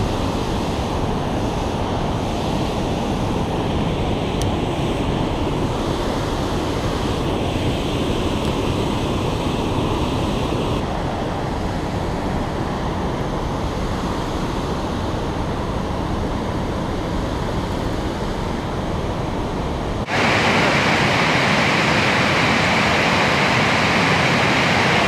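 Fast river water rushing over shallow rapids: a steady, loud rush of noise. Its tone brightens and it grows louder about twenty seconds in.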